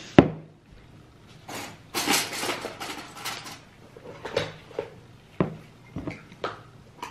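Kitchen handling noises of dishes and utensils: a sharp clack just after the start, a couple of seconds of dense rustling and scraping, then a few light knocks and clinks.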